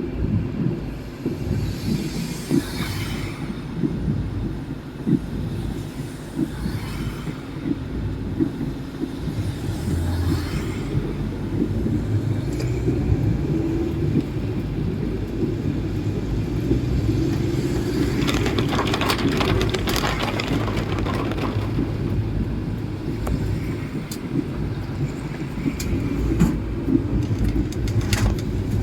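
A vehicle on the move: a steady low rumble, with several swells of higher hissing noise, the loudest about eighteen to twenty-one seconds in.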